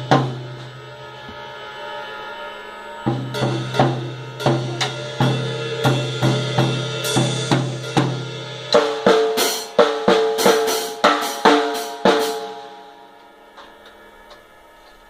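A small child playing a drum kit: drum and cymbal strikes in an even beat, about one and a half a second, then a quicker run of hits before the drums ring out and fade.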